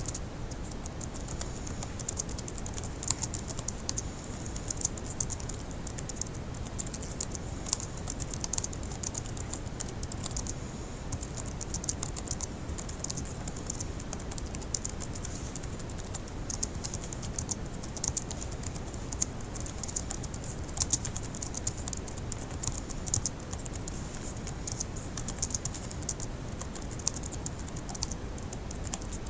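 Fast, continuous typing on a laptop keyboard: a dense, uneven stream of light key clicks with occasional louder taps, over a faint steady low hum.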